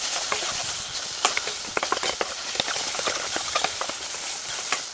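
Glass noodles and egg frying in oil with a steady sizzle, while a spatula is stirred through them, knocking and scraping irregularly against the pan.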